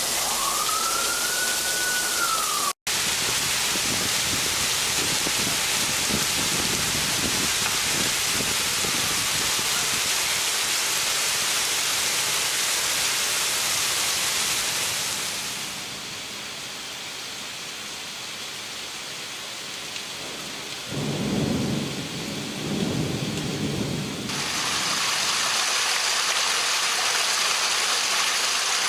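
Steady heavy rain, with a brief rising-and-falling tone at the start and a low rumble about two-thirds of the way through.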